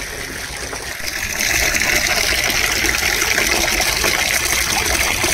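A stream of water gushing and splashing into a large container being filled as a bird bath. It grows louder a little over a second in, then runs steadily.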